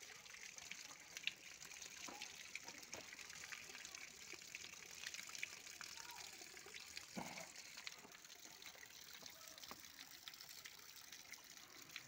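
Water from a hose trickling out of porous rock and spattering down over stacked slate in a decorative stone water feature: a faint, steady trickle with many small drips.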